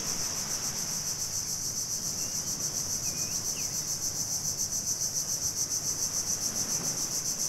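Steady high-pitched shrilling of insects, pulsing evenly several times a second.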